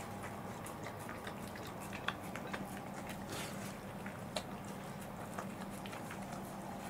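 Welsh corgis licking watermelon remains off plates: scattered wet smacks and sharp little clicks over a steady low hum.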